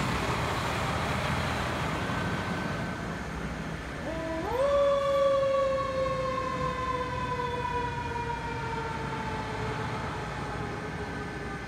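A fire truck drives away with its engine running. About four seconds in, its siren winds up quickly, then slowly winds down in pitch as the truck moves off.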